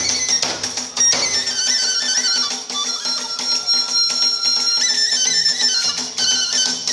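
Iwami kagura accompaniment music: a bamboo flute playing a high, wavering melody over struck hand cymbals, with the drum dropping out about a second in and coming back near the end.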